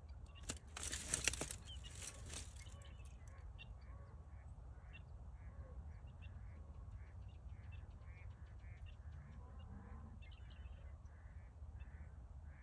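A beaver slapping its tail on the pond surface: a sharp smack about half a second in, then a second or two of splashing. This is the beaver's alarm signal to its family that danger is near. Short calls repeat about twice a second afterwards.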